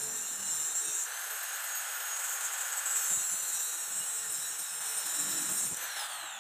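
Angle grinder with a cut-off disc cutting into the steel jaw of a pair of pliers: a steady high, hissing whine. Near the end the grinder is lifted off and its whine falls as the disc spins down.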